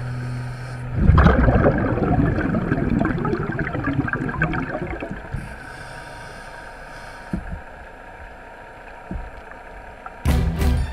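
Underwater sound of a scuba diver's regulator exhausting exhaled bubbles: a rough, bubbling burst for about four seconds, then quieter water hiss with a few faint clicks, then another burst near the end. A steady low hum at the start stops about a second in.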